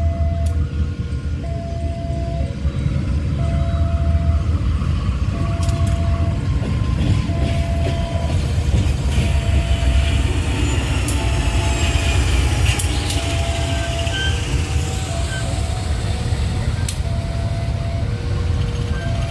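Diesel-electric locomotive (an Indonesian CC203) running with a steady low rumble, while a short two-note electronic tone repeats evenly in the background.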